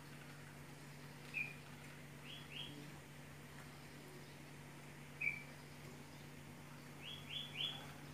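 Faint high chirps over a steady low hum: a single short note followed by a quick run of two or three chirps, heard twice.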